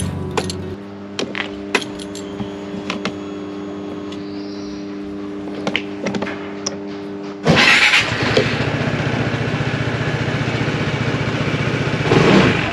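A few clicks of the ignition key and switches, then a Vespa GTS 300 HPE's single-cylinder four-stroke engine starts about seven and a half seconds in and settles into a steady idle, briefly louder near the end.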